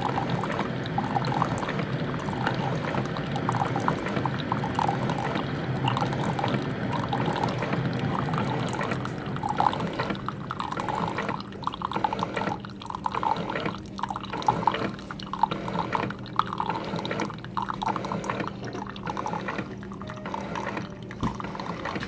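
Keurig K425 coffee maker brewing on its strong setting: the pump runs with a steady hum while coffee pours into the cup, coming in pulses that push the water through the pod to extract more coffee. The pulses grow more distinct about halfway through.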